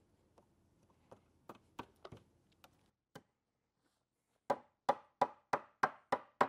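Mallet knocking a wooden breadboard end onto glued loose tenons, driving it tight against the tabletop. A few light knocks come first, then from about halfway a steady run of firm blows, about three a second.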